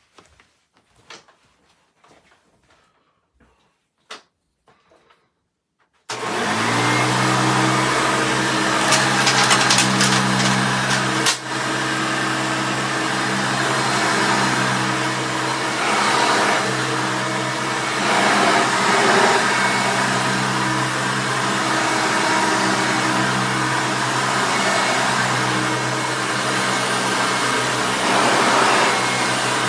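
A few faint clicks, then about six seconds in a 1989 Hoover Elite 350 vacuum cleaner switches on, its motor spinning up to a steady hum with a rush of air. Between about nine and eleven seconds in there is a burst of crackling as debris is sucked up, with one brief dip soon after.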